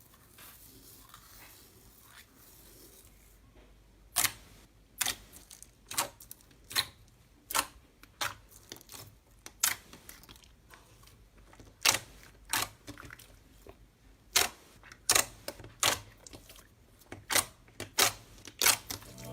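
Slime being worked by hand, giving off a series of sharp clicking pops, uneven at about one to two a second, starting about four seconds in.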